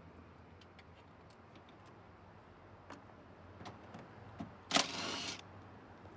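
Quiet, steady low hum of a 2008 Suzuki Swift's cabin on the road, with faint scattered ticks and one short, loud burst of hissing noise nearly five seconds in.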